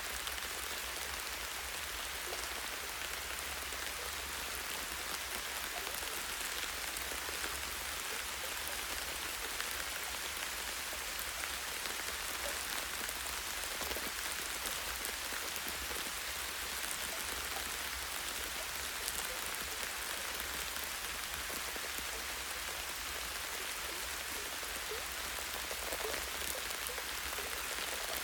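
Light, steady rain falling on forest tree branches: an even hiss with scattered individual drops ticking.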